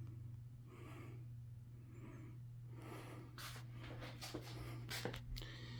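Circa-1985 Litex Lexington ceiling fan running on low speed: a faint steady motor hum with soft air noise, and a few light clicks in the second half.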